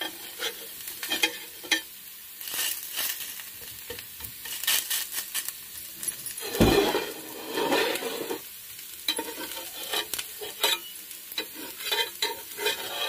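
Ragi rava dosa sizzling on a hot nonstick tawa while a flat spatula scrapes under it to loosen it from the pan, in short strokes with a louder, longer scrape about halfway through.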